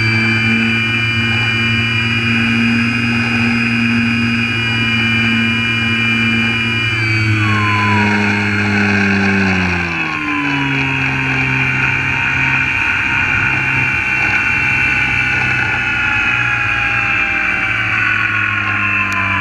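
Onboard sound of a radio-controlled airplane's motor and propeller running hard with a steady high whine. About seven seconds in, the pitch glides down over a few seconds as the throttle comes back, then the motor keeps running lower and slowly falling.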